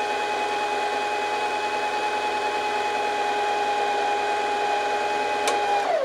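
Singer Heavy Duty sewing machine's motor running at a steady speed to wind a bobbin, a steady whine. Right at the end it falls in pitch as the motor slows to a stop.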